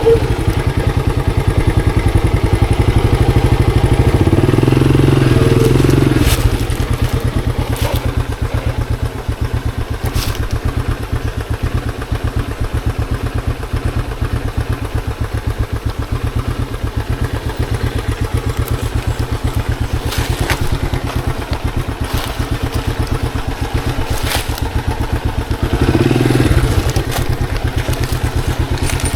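Monarch Axis 125 motorcycle engine running while trail riding. It runs harder for the first six seconds and again briefly near the end, and lower in between. A few sharp knocks are heard during the ride.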